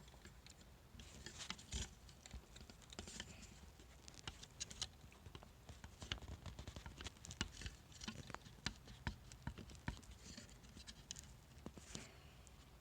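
Light, scattered clicks, taps and short scrapes of metal alternator parts being handled and pried as a riveted internal part of a Hitachi alternator is worked loose by hand.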